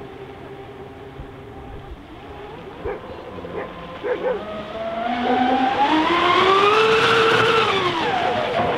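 Electric motors of a large RC offshore speed boat, the Mystic 5000, running on the water with a high-pitched whine. About halfway in, the whine climbs steadily in pitch and loudness, peaks, then drops back down near the end.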